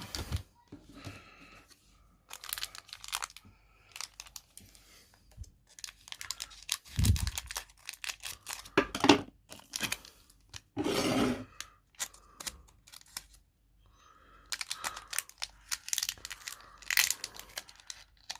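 Foil booster pack of Pokémon cards being crinkled and torn open, in irregular short bursts of crackling and tearing with a dull thump partway through; the pack is hard to open.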